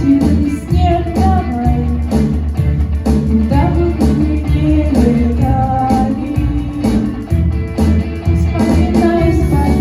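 Music: a song's accompaniment with guitar over a steady beat, with a melody line running above it.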